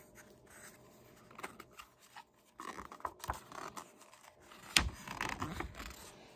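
Pages of a paperback picture book being handled and turned, paper rustling and crinkling in irregular bursts, with one sharp click a little past halfway that is the loudest moment.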